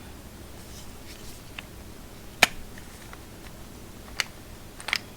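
A few light clicks and taps from handling a hand rivet gun as its swivel head is turned to a new angle, with one sharp click about two and a half seconds in.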